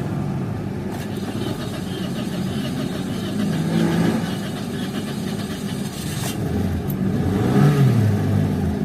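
Toyota Vios petrol engine running roughly after a start, its revs rising and falling twice, then dying near the end. The car has a start-then-stall fault.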